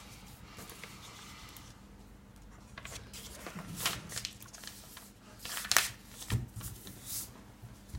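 Sheet of printer paper being handled and folded, rustling and crinkling in short bursts, with a soft knock on the table a little past the middle.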